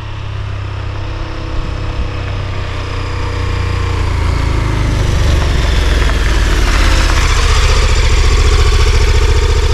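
Adventure motorcycle engine coming closer and growing louder, then running at a steady idle close by as the bike stops.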